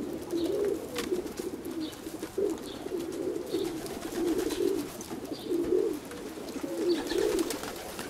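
Domestic pigeons cooing, low warbling coos following one another with hardly a break.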